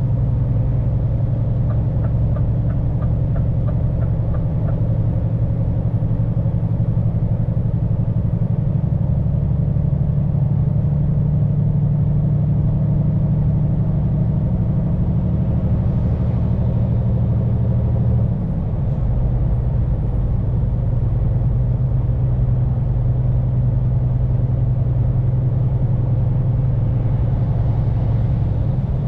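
Scania P410 truck's 13-litre straight-six diesel running steadily under way, heard from inside the cab; its drone changes briefly about 18 seconds in. A short run of light ticks sounds about two to five seconds in.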